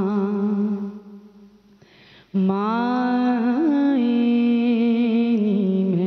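A woman singing a Punjabi naat in long held notes. Her phrase fades out about a second in, and at about two and a half seconds a new phrase enters, gliding upward into a long sustained note.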